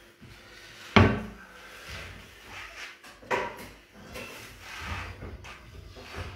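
Knocks and clatter of kitchen handling: one sharp knock about a second in, the loudest sound, and a second, lighter one about two seconds later.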